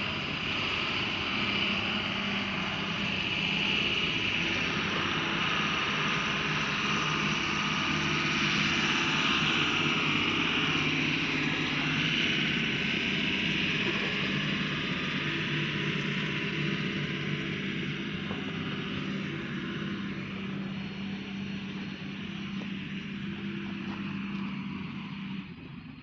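Tipper truck's diesel engine running steadily under a loud hissing rush that builds and then eases, the whole sound dropping away sharply near the end.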